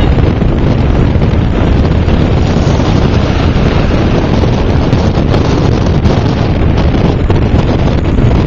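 Steady, loud rumble of a car driving in city traffic, with wind buffeting the microphone.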